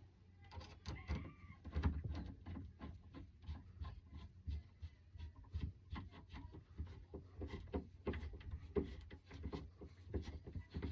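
Hand screwdriver turning a big screw to fix a door handle in place: faint, irregular clicks and scrapes, several a second, with a brief squeak a little after the start.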